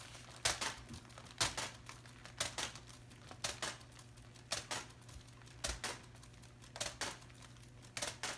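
Plastic sheeting crinkling in a short swish about once a second, as the yardstick under a pair of spinning canvases on a cake-spinner turntable brushes it on each turn. A faint steady low hum runs underneath.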